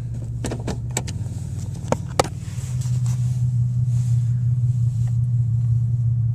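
2001 Pontiac Grand Am engine running with a loud, steady low drone, the big loud noise from the motor that comes with vibration and worsens on acceleration. A few sharp clicks sound in the first couple of seconds, and the drone grows louder about two and a half seconds in.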